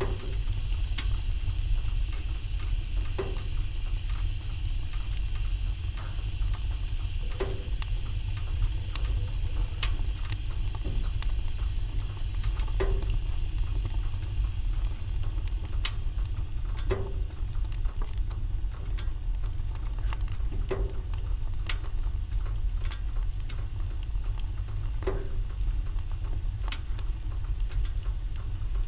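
Wood fire in a fireplace crackling, with scattered sharp crackles and a low pop every few seconds over a steady low rumble.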